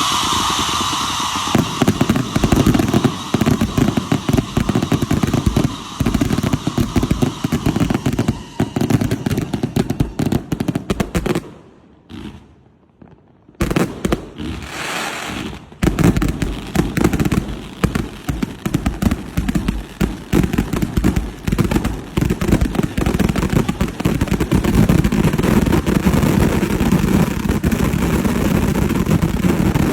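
A fireworks finale barrage: rapid, dense, overlapping explosions and crackling. There is a lull of about two seconds near the middle, and then the barrage resumes.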